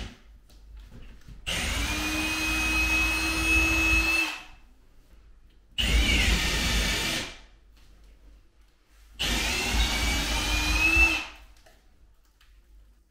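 Cordless drill running in three separate bursts, of about three, one and a half and two seconds, as it drills up into a wooden ceiling, widening a hole to take a larger fitting.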